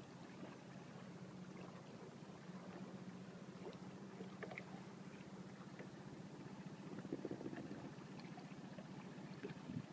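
Faint, steady low motor hum with a few faint ticks.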